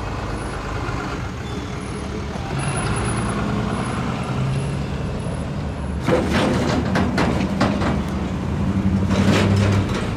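Road vehicles idling and pulling away across a railroad grade crossing, engines running with a low hum. From about six seconds in, a pickup towing a flatbed trailer and then a heavy truck cross the tracks, rattling and clanking as they bump over the rails, loudest near the end.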